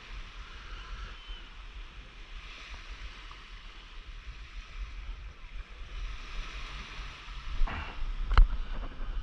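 Wind on the microphone with small surf washing on a sandy shore. Near the end comes a brief rustle and then a single sharp knock as the camera is handled.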